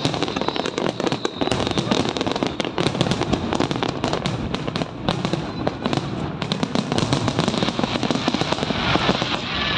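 Aerial fireworks display: shells bursting overhead in a close, continuous run of bangs and crackling.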